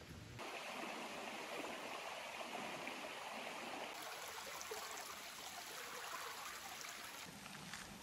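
Steady rushing water of a forest stream, a continuous hiss that cuts in abruptly about half a second in.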